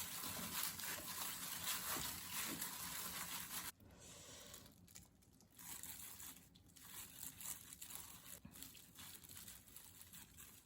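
Crinkling, rustling noise that cuts off abruptly about four seconds in, followed by scattered soft rustles and light knocks.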